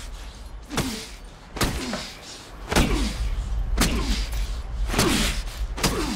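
Trailer sound design: a series of heavy impact hits, about one a second, each followed by a tone that falls in pitch. A low rumbling drone runs under them and grows louder about three seconds in.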